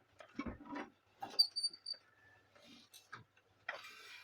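Plastic printer parts being handled and pried apart: scattered clicks, a short high squeak about a second in, and a brief scraping rustle near the end.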